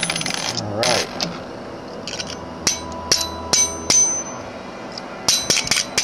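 Small sharp metal clicks with a brief high ring, from a screwdriver working the centre hub screw of an opened laptop hard drive: about five evenly spaced clicks in the middle, then a quick run of them near the end, after two short scrapes at the start.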